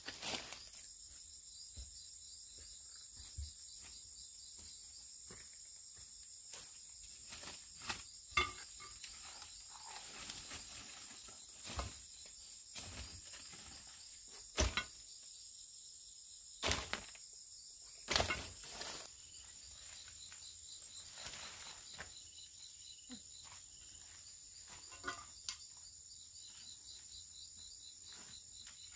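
Forest insects chirring steadily in a high, finely pulsing drone, with scattered footsteps and rustles of someone moving through leaf litter and undergrowth, a few louder knocks about halfway through.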